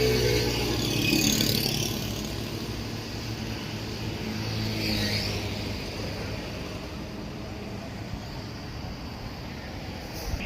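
Road traffic passing close by: heavy vehicle engines running low and steady with tyre noise, loudest at the start and again around the middle, then easing off.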